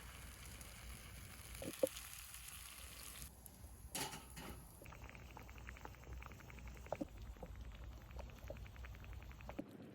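Faint crackle of food cooking, sizzling and bubbling softly, with a few light clicks. The texture changes abruptly twice, about three and five seconds in.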